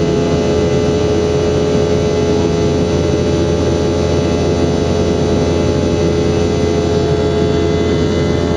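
Boeing 717-200's Rolls-Royce BR715 jet engines running steadily: a constant drone with a strong steady whine over a low hum, unchanging throughout.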